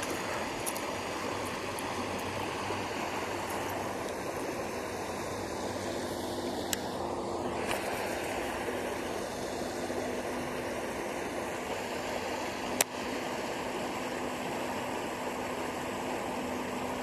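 Creek water running steadily through a low-water ford, with two brief sharp clicks partway through.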